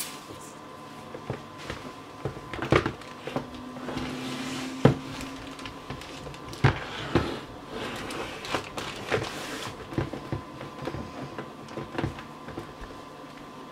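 Plastic bidet toilet seat and lid being handled: scattered knocks and clacks as the lid is swung open and the seat is set down and shifted, over a faint steady hum.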